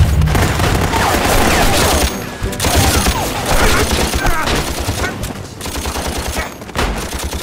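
Rapid sustained gunfire from machine guns and rifles, with shots following one another in quick runs.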